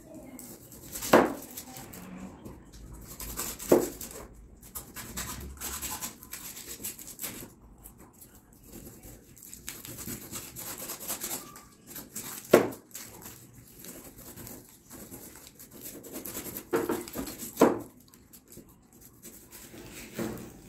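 A kitchen knife sawing through an aluminium-foil-wrapped roll of set date-and-biscuit mix on a plastic chopping board. Foil rustles and scrapes, and the blade strikes the board with several sharp knocks a few seconds apart.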